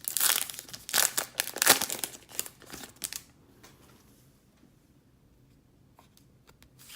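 A 2018 Topps Gypsy Queen baseball card pack's wrapper being torn open and crinkled for about three seconds, then only a few faint ticks as the cards are handled.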